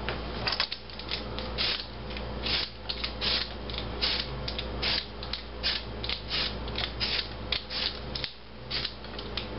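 Vegetable peeler scraping the skin off a raw potato in quick, repeated strokes, about two to three a second.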